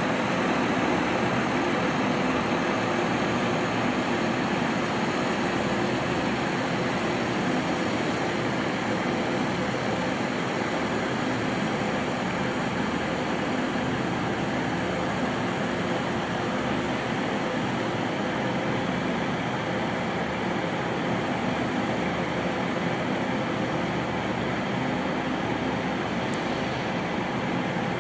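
Class 43 HST diesel power car idling, a steady engine hum with a constant hiss over it.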